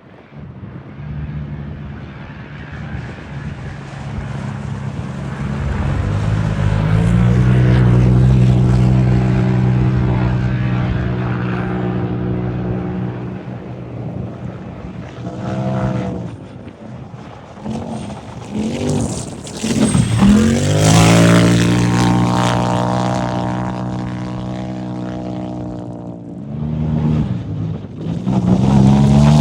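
Off-road racing UTVs' engines going past one after another. The sound builds over the first few seconds, holds a steady high-revving note, and then swoops in pitch as further vehicles pass, about 16, 20 and 27 seconds in.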